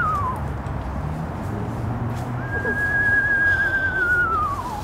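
Man whistling calls imitating a screech owl: a high held note that slides down in pitch. The first whistle's falling end comes at the start, and a second begins about two and a half seconds in, holds steady for about two seconds and then falls away near the end.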